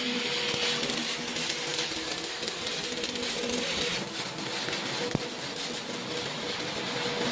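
Stick-welding arc crackling and hissing steadily, with a steady hum underneath.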